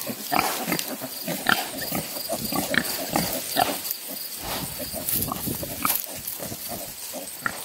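A sow and her newborn piglets grunting in many short, irregular calls in quick succession, as the sow guards the litter.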